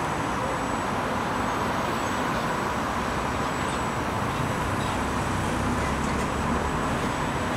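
Steady background noise with a faint, even tone running through it, and no distinct knocks or splashes.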